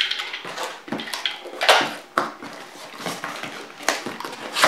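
Cardboard parcel being opened by hand: the cardboard and packing tape scrape and rustle as the flaps are pulled apart, with a few sharp knocks.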